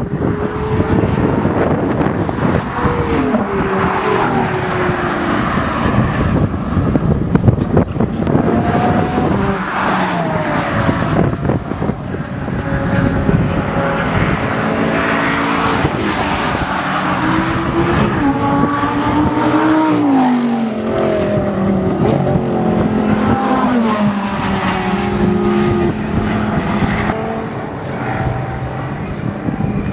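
Supercar engines running hard on a track, their pitch rising and falling as they rev and shift, with one long falling sweep as a car slows, over a constant wash of engine and tyre noise.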